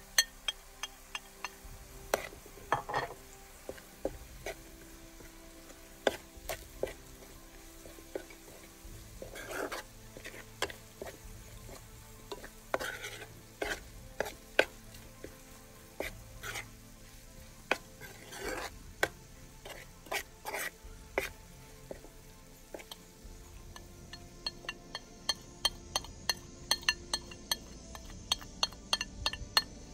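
A metal spoon stirring and scraping fried onions with dried mint, turmeric and flour in a black pan, clinking against the pan over a light sizzle of frying. The clicks come faster over the last few seconds.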